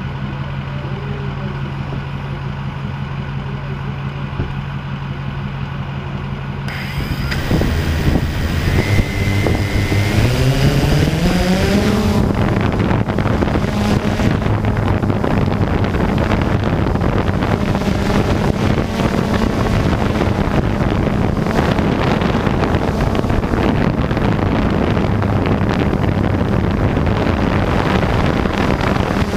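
A steady low hum, then a Blade 350 QX quadcopter's motors spin up with a rising whine from about eight to twelve seconds in. They settle into a steady buzz of propellers as the drone lifts off and climbs, heard from the camera mounted on the drone itself.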